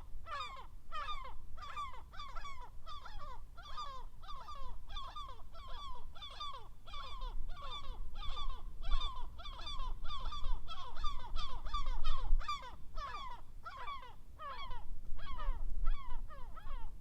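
Gulls squawking in a rapid, unbroken series of calls, about two a second, each with a slight downward fall, over a low rumble.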